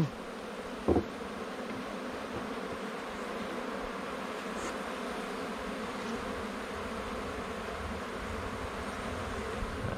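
Steady buzzing of a honeybee colony in an open hive, the bees just shaken in onto the frames. A single short knock about a second in.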